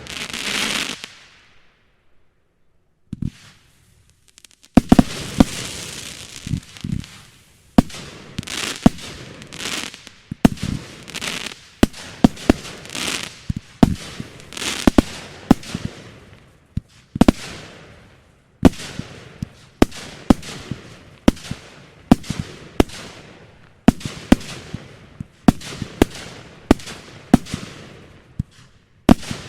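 Fireworks display: aerial shells bursting in sharp bangs, each followed by a decaying crackling hiss. After a short lull a few seconds in, the bangs come in a steady run of roughly one or two a second.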